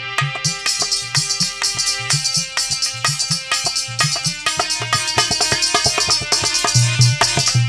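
Instrumental interlude of a Hindi bhajan: harmonium playing a melody over a dholak beat, with a rattling hand percussion keeping time. The dholak's deep strokes grow heavier near the end.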